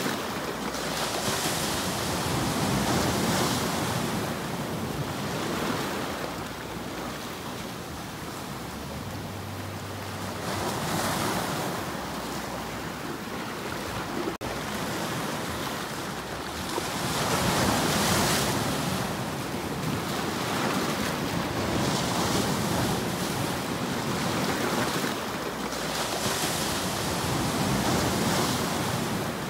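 Sea surf breaking and washing over shoreline rocks, the rush of water swelling and falling away every few seconds.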